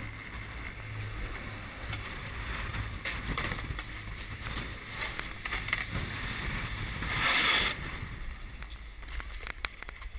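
Snowboards sliding and scraping over packed snow while wind rumbles on the action camera's microphone. There is a louder scrape about seven seconds in and a few sharp clicks near the end.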